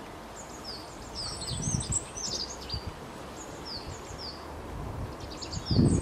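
Small songbirds chirping: quick runs of short, high, falling chip notes. Low rumbling bumps come about a second and a half in and, loudest of all, just before the end.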